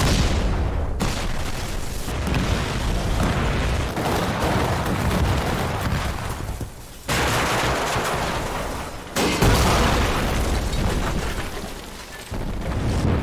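Film battle sound effects: a continuous din of explosions and gunfire, with fresh blasts starting suddenly about seven, nine and a half, and twelve seconds in.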